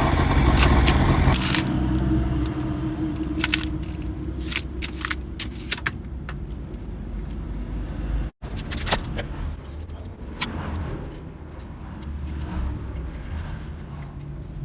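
Honda CBR1000RR inline-four engine running, cutting off sharply about a second and a half in. A low hum with scattered metallic clicks, knocks and scrapes follows.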